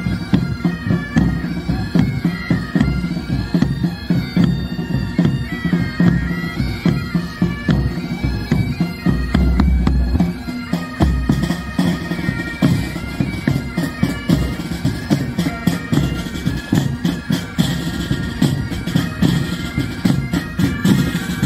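Military pipe band playing a march: bagpipes sound a melody over their steady drones, with drums beating throughout.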